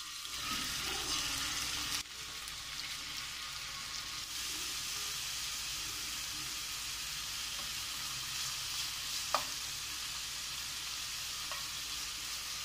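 Marinated boneless chicken pieces sizzling in hot oil in a frying pan: a steady frying hiss with an occasional small pop.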